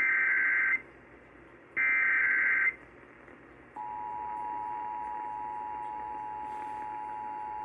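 Emergency Alert System SAME header: two bursts of digital data tones, each about a second long, followed about four seconds in by the EAS two-tone attention signal (853 and 960 Hz) holding steady.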